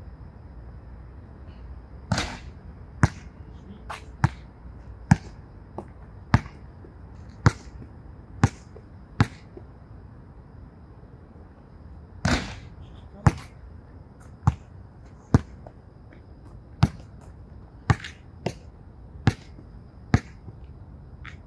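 Basketball being dribbled on an outdoor hard court: single sharp bounces about a second apart, with two louder impacts that ring on a little longer, about two seconds in and about twelve seconds in.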